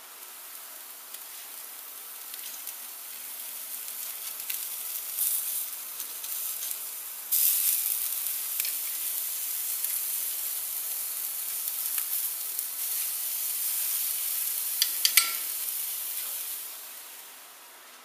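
Food sizzling on a grill grate over a wood fire. The hiss builds slowly, jumps up suddenly about seven seconds in, then holds steady before dying away near the end. A few sharp clicks come shortly before it fades.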